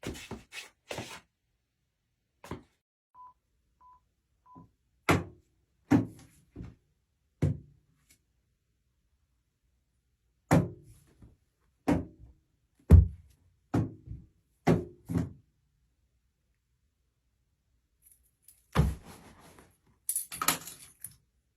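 A series of separate thunks and knocks from Foley props being struck in a small studio, with three short beeps a few seconds in, and a rougher scuffling burst near the end.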